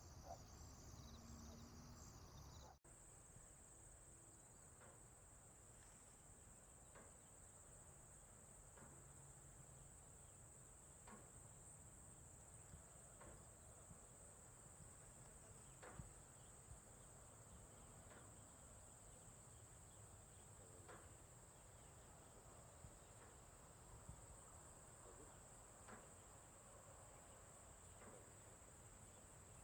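Faint, steady high-pitched insect chorus, a continuous shrill trill. It takes over after an abrupt cut about three seconds in, replacing a different pulsing high-pitched chorus, with occasional faint ticks over it.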